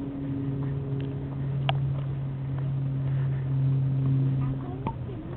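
Steady low motor hum with a few faint clicks.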